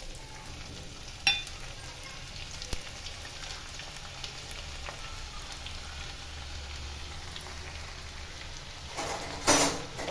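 Garlic frying in hot mustard oil in a pan, with a steady sizzle. A sharp metal clink about a second in, and a louder burst of noise near the end.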